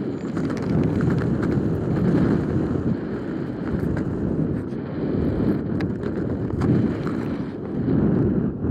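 Wind rushing over the camera microphone during a descent under an open parachute canopy: a steady, loud low rumble with scattered faint ticks.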